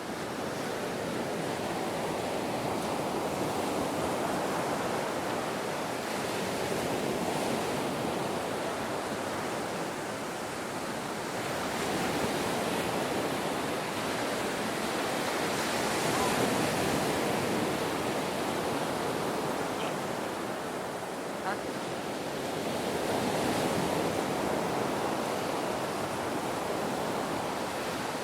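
Waves breaking on a beach: a continuous wash of surf that swells and eases every few seconds.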